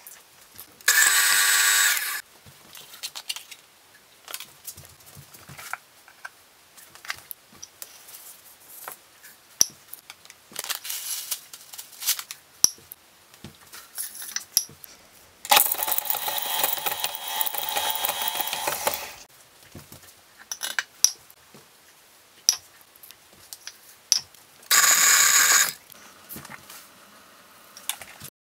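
KitchenAid stand mixer motor whining as it mixes cookie dough in three runs: a short one about a second in, a longer one of about three and a half seconds in the middle, and a brief one near the end. In between come sharp clinks and taps as measuring cups and ingredients go into the steel bowl.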